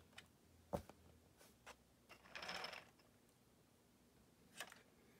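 Faint plastic clicks and a short scraping rattle as a small plastic model T-90 tank is set down onto a plastic model trailer deck. The clicks are scattered; the rattle comes near the middle.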